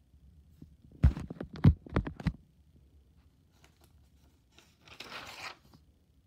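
Handling of a spiral-bound paper notebook: a quick run of five or six thumps about a second in, then a short rustle of a page being turned near the end.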